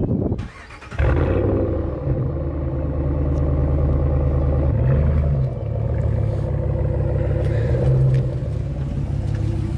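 Ram 1500's Hemi V8 idling through its exhaust, a steady low engine note that comes in suddenly about a second in and holds with small rises and dips.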